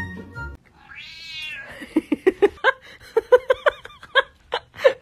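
Background music cuts off, then a cat meows: one longer wavering cry, followed by a quick run of short, repeated meows at about four a second.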